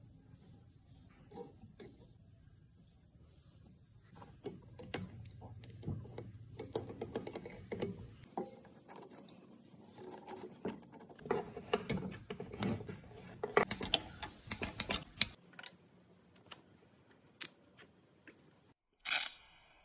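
Small metal clicks, taps and scrapes of hand work on a cast-iron brake master cylinder: the piston and a thin pick working at the cylinder bore. The clicks come irregularly, busiest in the middle and thinning out near the end.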